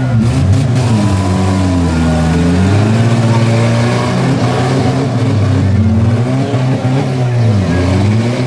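Several four-cylinder demolition-derby car engines revving up and down over one another, their pitches rising and falling as the cars push against each other. A few short clatters come right at the start.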